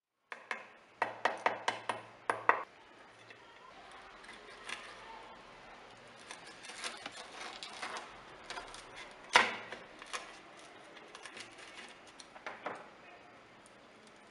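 Kitchen knife tapping on a plate and cutting into a crisp deep-fried kachori: a quick run of sharp clicks in the first few seconds, then light crackling and scraping of the crust, with one loud click about nine seconds in and a few smaller taps near the end.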